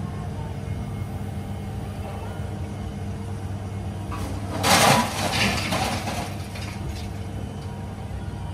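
An engine runs steadily throughout. About four and a half seconds in, a loud crash and clatter of scrap metal sounds as the grapple drops its load onto the scrap pile, dying away over about a second and a half.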